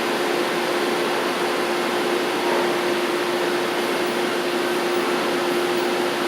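1998 Mazak VTC 20B CNC vertical mill running: a steady machine hiss with one constant mid-pitched whine.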